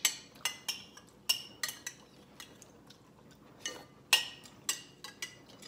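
Metal spoon clinking and scraping against a ceramic bowl while eating, a dozen or so short, ringing clinks at an uneven pace, the loudest about four seconds in.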